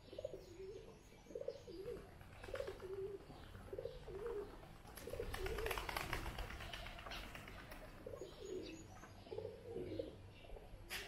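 Pigeons cooing over and over in short, low phrases. A brief rushing noise rises and fades about five seconds in.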